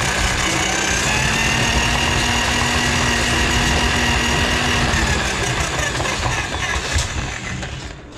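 Drill-driven drum drain auger spinning its cable in a kitchen sink drain line clogged with grease: a steady motor whine that steps up in pitch about a second in, then winds down from about five seconds, with a sharp knock near the end.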